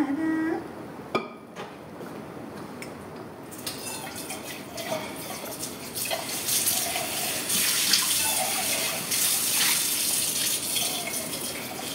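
Water running from a kitchen tap, a steady hiss that starts about three and a half seconds in and grows louder about six seconds in.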